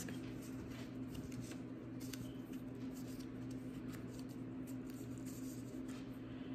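Faint ticks and rustles of a small paper-and-ribbon craft piece being handled between the fingers, over a steady low hum.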